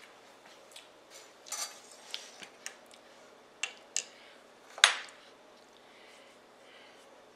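Metal kitchen utensils clinking and clattering: a run of sharp clicks from about one and a half seconds in, ending in the loudest clack about five seconds in.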